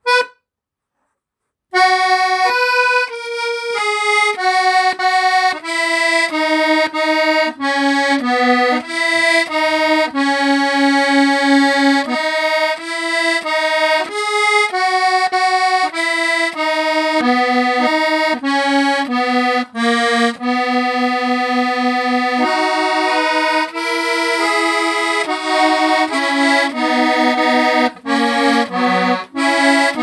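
A squeeze box (a hand-played free-reed instrument of the accordion family) playing a tune, melody notes over changing chords. It starts about two seconds in, after a short click.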